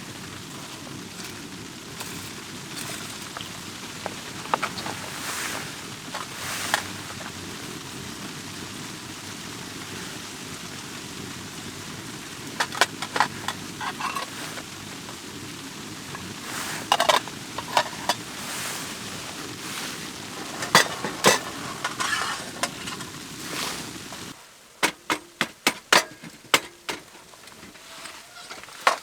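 Wood fire crackling in a small wood stove: sharp pops and snaps over a steady low rush. The low rush cuts off suddenly about 24 seconds in, leaving sparser clicks and knocks.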